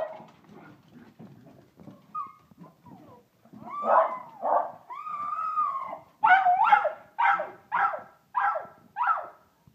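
Schnauzer whining and yipping with excitement as a greeting: faint scuffling clicks at first, then a long whine about five seconds in, followed by a quick run of about seven short yips, roughly two a second.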